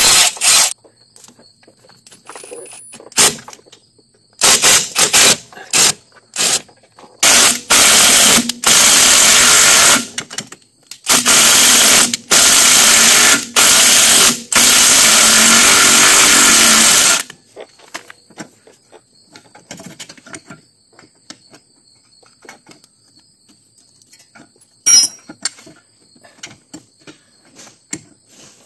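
Milwaukee Fuel cordless impact tool running out the rear suspension strut rod bolts in several bursts, the longest about six seconds, then stopping. Afterwards there are only light clicks of tools and one sharp metallic click near the end.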